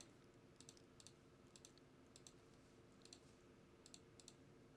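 Near silence with faint computer mouse clicks, mostly in quick press-and-release pairs about every half second, over a faint steady low hum.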